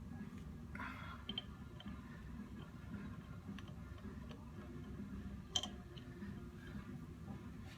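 Scattered light clicks and taps of metal pump parts and hand tools being handled during disassembly, with a brief scrape about a second in and a sharper click past the middle, over a low steady hum.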